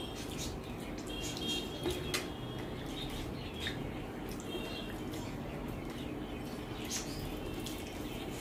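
Close-up eating sounds: soft clicks and smacks of someone chewing rice and greens, the sharpest clicks about two seconds in. A few short high-pitched chirps come and go in the background.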